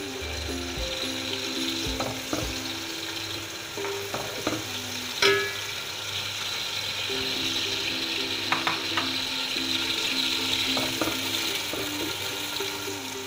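Sliced onions sizzling as they fry in hot oil in a large aluminium pot, being stirred, with a steady hiss. A sharp knock sounds about five seconds in, with a few fainter clicks here and there.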